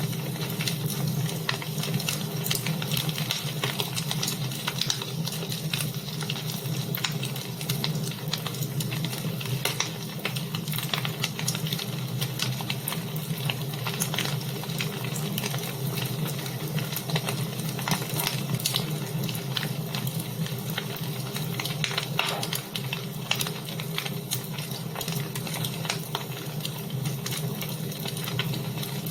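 Wood fire burning in a fireplace, crackling steadily with many small sharp pops over a low, even rush.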